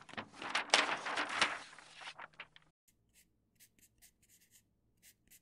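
A sheet of paper rustles and crinkles as a page turns, fading out about two and a half seconds in. Faint, short scratches of a pencil writing on paper follow.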